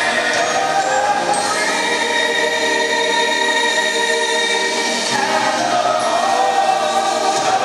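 Choral singing with music, in long held notes that change pitch every second or two.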